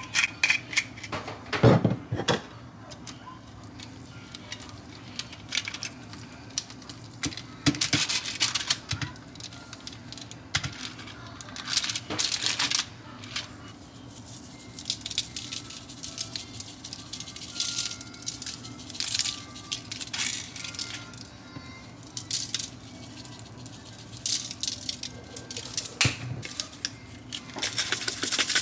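Kitchen clatter: pans, dishes and utensils knocking and clinking as food is handled, in scattered short clicks and knocks. Near the end a steady rushing noise begins.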